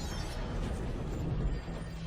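Bass-heavy music playing through a home-built boombox speaker with two subwoofers, the low end strong and steady.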